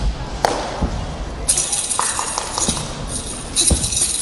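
Sharp knocks and thuds from a wushu spear routine, the loudest about half a second in and more around two and near four seconds, as the spear and the performer's feet strike. From about a second and a half in, a high rattling hiss joins them, over the murmur of a large hall.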